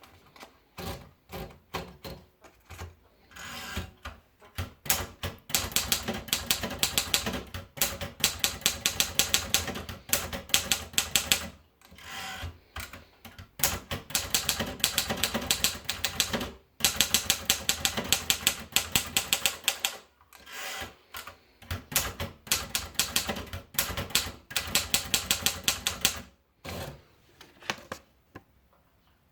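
Remington Cicero typewriter being typed on: fast runs of key strikes, several a second, in bursts broken by short pauses, stopping near the end.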